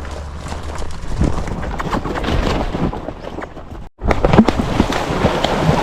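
Hoofbeats of a ridden horse moving among cattle, many quick irregular knocks, with wind noise on the microphone; the sound cuts out for a moment about four seconds in and comes back louder.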